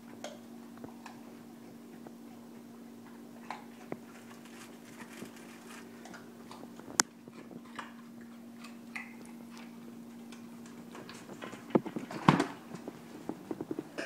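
Dogs moving about and eating carrots: claws clicking and tapping on the hard floor and carrot pieces crunching, over a steady low hum. One sharp click comes about halfway through, and a cluster of louder knocks and crunches comes near the end.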